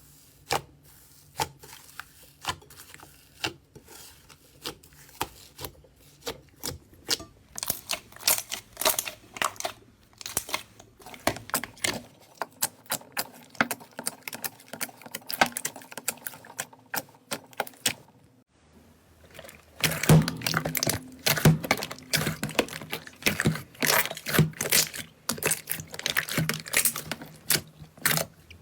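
Slime being squeezed, poked and stretched by hand, giving rapid irregular clicks, crackles and pops of air bubbles, sparse at first and densest in the last third.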